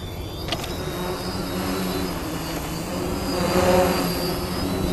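Quadcopter drone's electric motors and propellers running with a steady buzz and whine, growing somewhat louder a little past halfway.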